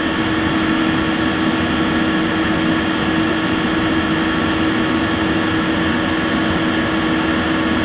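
Eberspacher Airtronic 3 diesel air heater running: its blower fan and burner give a steady whirring rush with a constant hum. The rear cover is off, which makes it noisier.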